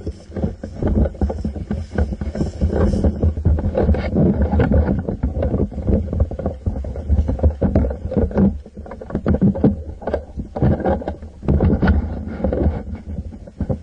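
Irregular rustling and knocks over a low rumble: handling noise on a camera mounted on an airsoft rifle as it is carried and moved.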